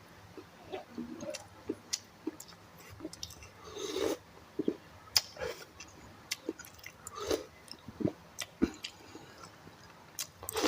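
A person chewing and biting close to the microphone while eating instant noodles, pork meatballs and boiled egg: irregular wet mouth clicks and smacks, with a few longer, louder bursts.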